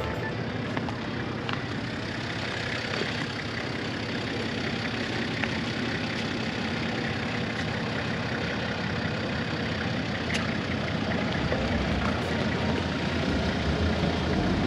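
A vehicle driving along: steady engine and road noise, getting slightly louder near the end.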